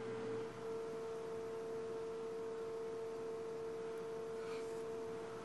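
A steady, unbroken single tone with a faint hiss under it.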